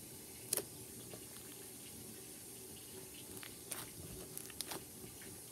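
Hands squishing and pressing a glittery slime with foam beads, giving faint wet squelches and a scattered handful of sharp little clicks and pops. A low steady hum sits underneath.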